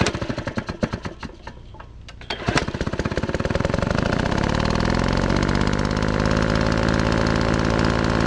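Small gasoline engine of a 1982 John Deere 116 lawn tractor sputtering unevenly, catching about two and a half seconds in and picking up speed to run steadily and loudly.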